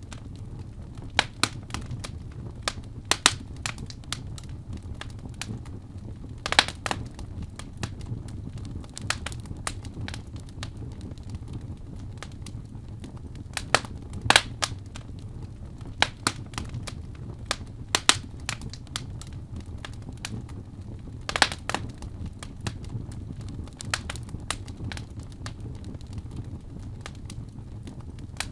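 Fire in a fireplace crackling, with irregular sharp pops, a few of them louder, over a low steady rumble of flames.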